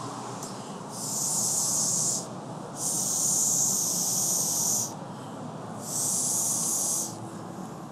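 Three hissing puffs blown through a Bark Art blow pen, a mouth-blown airbrush marker spraying colour onto a dog's coat. Each puff lasts one to two seconds, the middle one longest.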